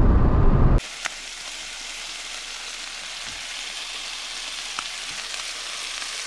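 A loud low rumble cuts off under a second in, giving way to a steady sizzling hiss with a couple of faint pops: food frying in a pan.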